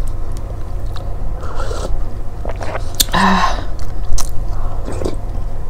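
Close-miked eating sounds of instant cup noodles: chewing and biting with small wet mouth clicks, and a louder slurp from a spoon of broth about three seconds in.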